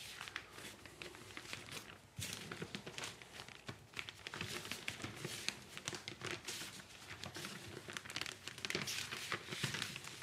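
Clear plastic foil crinkling and rustling in irregular handfuls as it is handled, lifted and pressed over a mound of powdered Bengal-fire composition to work in its plastic binder.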